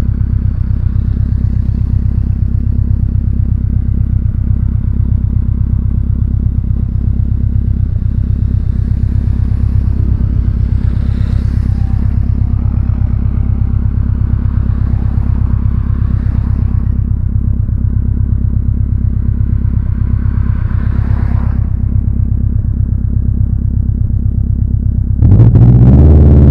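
Subaru Impreza GB270's flat-four engine idling steadily through a custom 3-inch exhaust, then revved up sharply near the end, getting much louder and rising in pitch.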